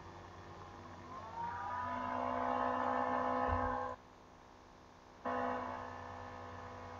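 A sustained electronic music chord that swells in about a second in with a slight upward glide, stops abruptly at about four seconds, comes back a second later and fades, over a steady low hum; a brief low thump lands just before the cut.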